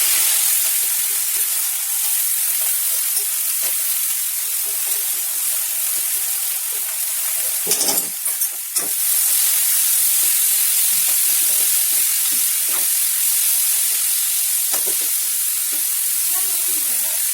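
Food sizzling steadily in a hot pan as it is stirred, with the spatula scraping and knocking against the pan. The scraping is heaviest about eight seconds in.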